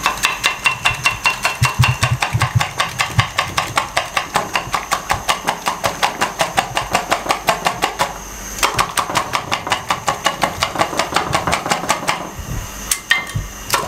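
Wire whisk beating eggs in a glass bowl: quick, even clinking strokes of the whisk against the glass, several a second, with a short pause a little past the middle before the beating picks up again.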